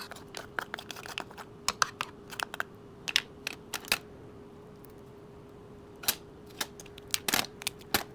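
Irregular sharp clicks and cracks of a steamed crab's shell being broken open and picked for meat, in a quick run for about four seconds, then again after a short pause. A faint steady hum sits underneath.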